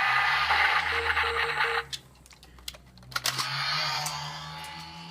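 A Kamen Rider Drive toy's small speaker playing an electronic sound effect that cuts off suddenly about two seconds in, followed by sharp plastic clicks from the toy being handled and faint electronic tones.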